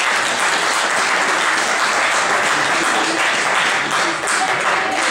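Spectators applauding steadily, a dense clatter of many hands clapping.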